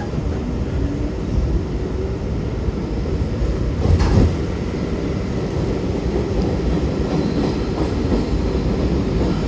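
New York City subway train pulling out of a station, heard from inside the car: a steady rumble of motors and wheels on the rails. A sharp knock comes about four seconds in.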